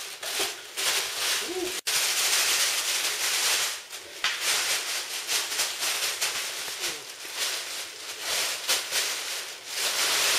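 Plastic bags crinkling and rustling continuously as puppies walk over and tug at them.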